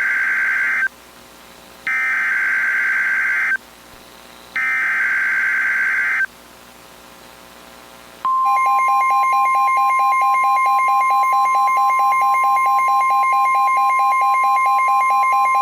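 Emergency Alert System SAME header data tones: the end of one buzzing burst and two more just like it, each under two seconds with about a second's gap between them. About eight seconds in, the loud, steady two-tone EAS attention signal starts and holds.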